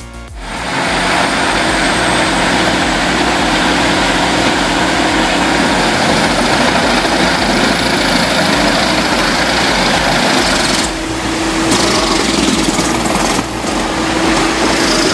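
Heavy diesel machinery running loudly and steadily, starting suddenly about half a second in, with two brief dips in level near the end.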